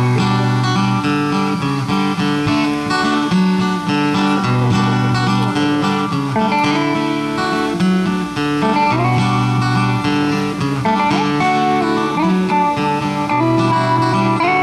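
Acoustic guitar strumming chords with an electric guitar playing along, a duo starting a slow song through a stage PA.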